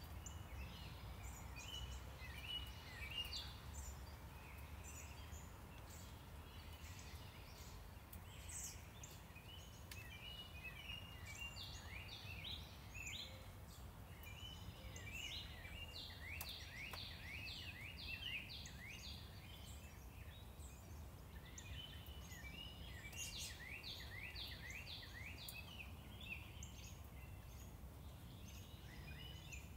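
Songbirds singing in phrases of quick, repeated high notes over a steady low rumble of traffic.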